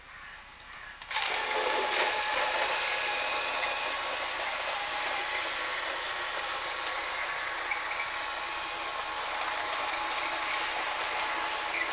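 Vintage Nikko Super Tanker RC semi-truck's battery-powered drive motor and gearbox starting up about a second in, then running with a steady high-pitched whir as the truck drives.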